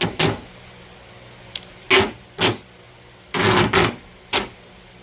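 Duct tape being pulled off the roll in short, loud rips, about six pulls with a longer double rip near the middle, as it is wrapped tightly around a wire fur stretcher and board.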